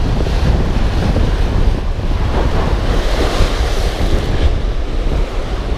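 Surf washing over a rocky shore under strong wind buffeting the microphone. A wave swells and washes through about halfway in.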